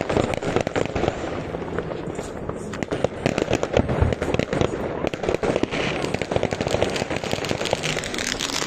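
Many fireworks and firecrackers going off at once: a dense, irregular run of sharp cracks and bangs.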